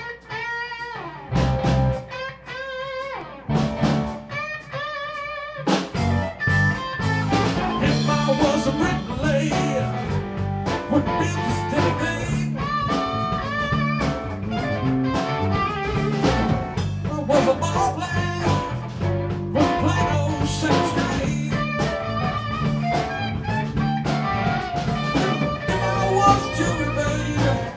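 A live band playing a blues tune on electric guitars, electric bass and drum kit. It opens with a few separate held notes with a wavering vibrato, then the whole band comes in together about six seconds in and plays on steadily.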